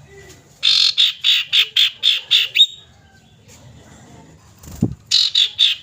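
Common iora giving a fast series of harsh, rasping call notes, about four a second, in two bursts. This is a lure call played to set caged ioras calling. Between the bursts there is a brief low falling sweep.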